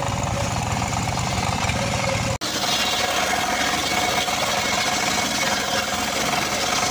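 An engine runs with a heavy low rumble. After an abrupt cut about two seconds in, a homemade engine-driven circular sawmill rips along a log: the blade holds a steady whine over a hiss of cutting wood.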